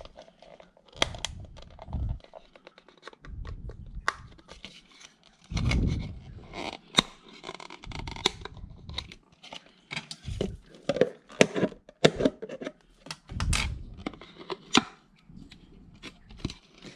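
Thin clear plastic pot handled and pressed in the hands: irregular crackling clicks and taps of flexing plastic, with dull handling knocks now and then.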